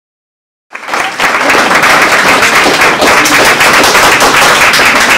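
Audience applauding, starting just under a second in after a moment of silence.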